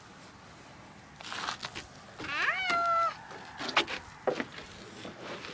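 A young child's high squeal, about a second long, rising in pitch and then held on one note, among a few short scuffs and knocks.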